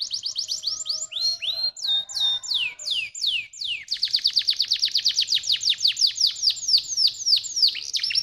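Domestic canary singing: quick trills of falling whistled notes, with a few slower, longer falling notes about one to three seconds in, then a fast, rolling trill from about four seconds in.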